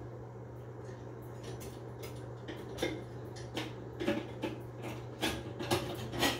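Metal bathtub overflow cover plate and trip-lever drain linkage clicking and clinking as they are fitted back against the tub: scattered light taps, closer together and louder in the last two seconds, over a steady low hum.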